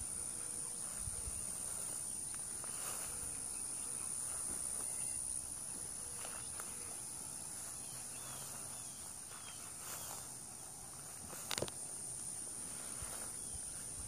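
Insects trilling steadily at a high pitch, a continuous outdoor drone with no pauses. A single sharp click sounds late on, over faint low knocks.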